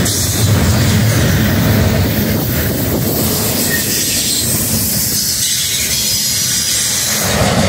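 Freight train rolling past close by: a steady, loud rumble of railcars with steel wheels running on the rails.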